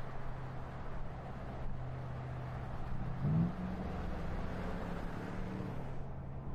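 Car driving on a city street: a steady low engine hum over tyre and road noise. About three seconds in, the engine note rises quickly and then holds at a higher pitch.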